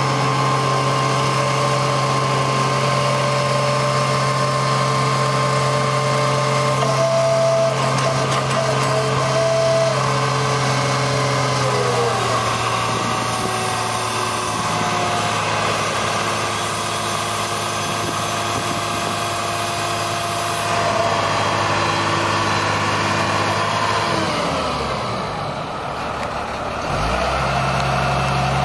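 Truck engine of a 1997 GMC C7500 digger derrick running steadily to drive the hydraulic boom and auger, with a hydraulic whine. The engine speed sags briefly a few seconds before the end and then comes back up.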